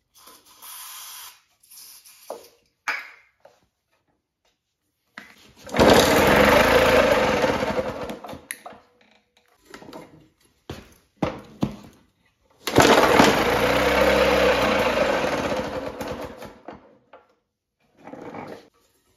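1957 Craftsman two-stroke mower engine: a short hiss of starting fluid sprayed into the intake, then the engine catches twice on the ether, each time running for two or three seconds before dying out. It will not keep running on its own, which the owner puts down to a clogged carburettor float bowl and needle and seat.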